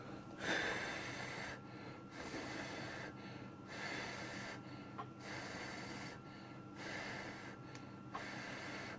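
A person breathing close to the microphone: about six even in-and-out breaths, roughly one every second and a half, over a faint steady electrical hum.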